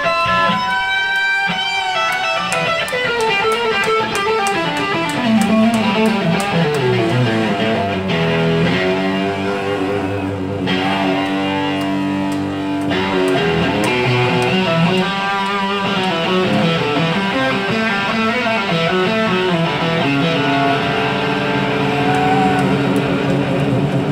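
Live electric guitar solo on a Stratocaster-style guitar with a soul band behind it: bent notes at the start, then a long run of notes stepping down, with more lead phrases over the band.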